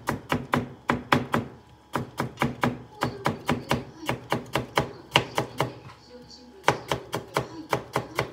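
Kitchen knife slicing a cucumber into thin strips on a white cutting board: a quick, even run of knife strikes on the board at about five a second, with short pauses about two seconds in and about six seconds in.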